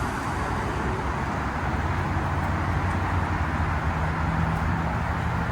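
Steady road-traffic rumble with a low hum, with no clear single passing car standing out.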